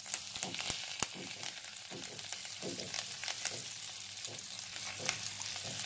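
Chopped green chillies sizzling in a little hot oil in a pan, a steady hiss with scattered sharp clicks, as the water in the chillies cooks off.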